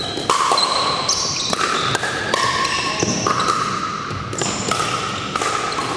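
Pickleball rally: paddles repeatedly striking a plastic pickleball in sharp pops, with athletic shoes squeaking in short held squeals on the hardwood gym floor.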